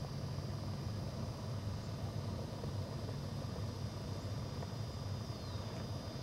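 Steady low hum of an electric pontoon boat's motor, with a faint thin steady whine above it. A faint short falling chirp comes about five seconds in.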